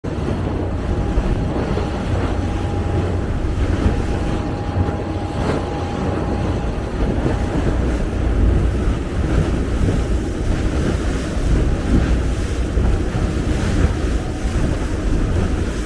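Wind buffeting the microphone on the deck of a moving tour boat, over the boat's steady low rumble and the wash of water. A faint steady tone sits in the background for the first half.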